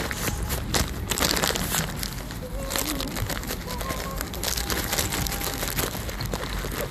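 Wind buffeting a handheld microphone, a steady low rumble with crackling and rustling handling noise.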